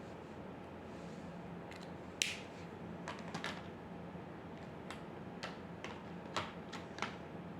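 Scattered light clicks and taps, about ten at uneven spacing, with a short scratchy stroke about two seconds in, over a steady low hum.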